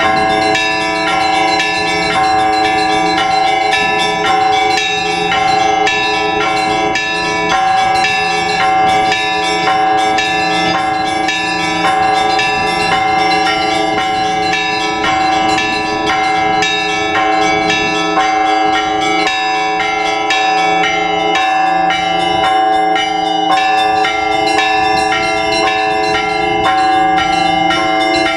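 Orthodox church bells rung by hand by a bell-ringer. Quick, continuous strikes on several smaller bells sound over the long ringing of larger bells, with no pause.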